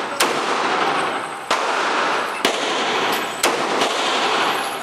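Handgun shots at an indoor range: four shots about a second apart, each followed by a long echo off the range walls, with a couple of fainter shots in between.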